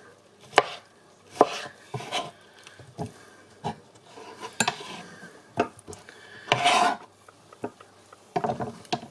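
Kitchen knife cutting peeled, blanched tomatoes on a plastic cutting board: separate sharp knocks about a second apart, then a longer scrape across the board near the end as the diced pieces are pushed off.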